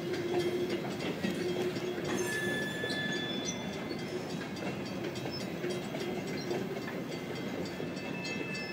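Coal hopper cars of a slow freight train rolling past over a grade crossing: a steady rumble of wheels with clicks over the rail joints, and now and then a brief thin squeal.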